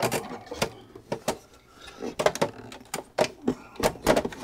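Sharp plastic clicks and knocks, irregular and roughly once a second, as the scanner/document-feeder unit of an Epson WF-4740 inkjet printer is worked loose from its housing by hand.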